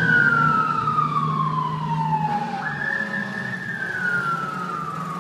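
Fire truck siren wailing as the apparatus drives away: the tone falls slowly, jumps back up about two and a half seconds in, then falls again, growing gradually fainter.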